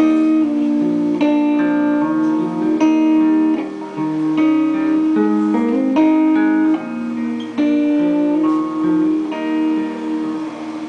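Live band playing the instrumental outro of a ballad: guitar strumming held chords that change about once a second, with no singing.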